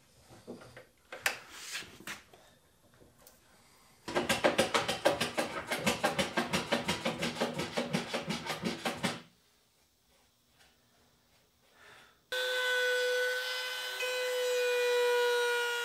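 A few light knocks of wood and clamps being handled, then quick rubbing strokes of a hand tool over wood, about five a second, for some five seconds. After a short pause, a compact router starts up and runs steadily with a held whine.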